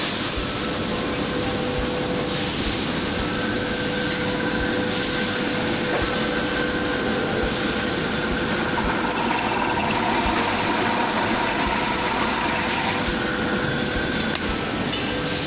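Hitachi B16RM bench drill press running, its electric motor and spindle drive giving a steady mechanical hum with a whine whose pitch shifts slightly partway through.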